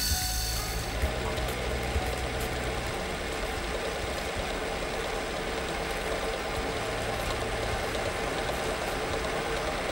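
Metal lathe taking a turning cut with a carbide insert tool: a steady, noisy cutting sound of curled chips breaking off the tool, over the low hum of the running lathe.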